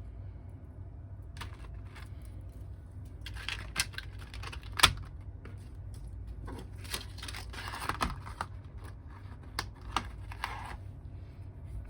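Irregular clicks, taps and rustling of small things being handled on a desk. The loudest is one sharp click about five seconds in, with a few more clicks after it, all over a steady low hum.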